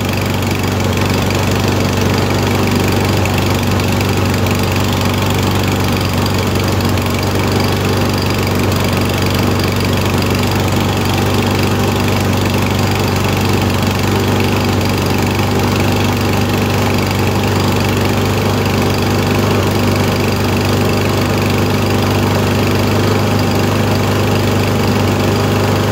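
Husqvarna push mower's single-cylinder OHV engine running at a steady speed with no surging or stumbling: it is running normally.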